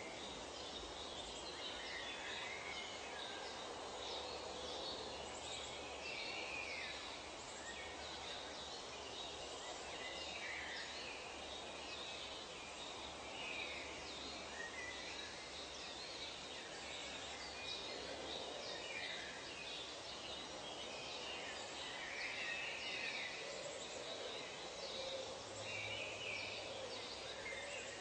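Forest ambience of many birds chirping and trilling in short, overlapping calls over a steady background hiss.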